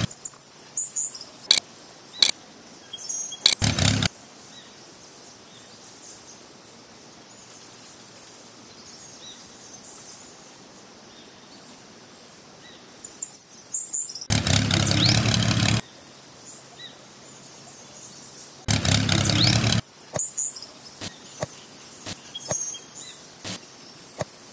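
Outdoor background with birds chirping, broken by scattered clicks and a few loud noisy stretches of about a second each.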